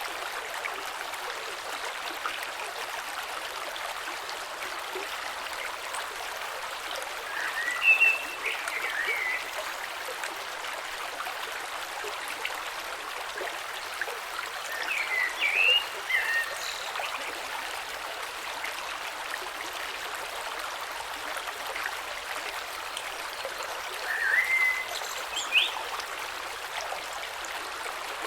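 Steady rush and trickle of a shallow creek flowing over stones below a waterfall. A few times, about 8, 15 and 24 seconds in, a bird gives short bursts of high, quickly gliding chirps over the water.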